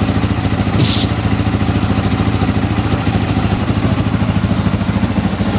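Yamaha Serow 225's air-cooled single-cylinder four-stroke engine idling steadily, heard close at the exhaust, with its holed muffler repaired and running quiet. A short hiss comes about a second in.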